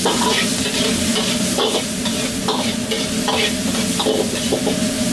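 Minced meat sizzling in a carbon-steel wok while a metal ladle scrapes and knocks against the pan every half second to second, over the steady roar of a gas wok burner.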